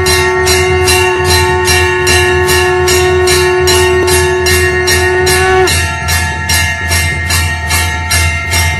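Conch shell (shankh) blown in one long steady note that breaks off with a slight drop in pitch about two thirds of the way through. Under it, temple bells are rung rapidly, about four strokes a second.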